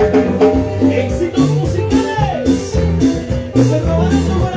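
Live Peruvian cumbia band playing: an electric lead guitar with gliding, bending notes over a low bass line, keyboard and drums keeping a steady dance beat.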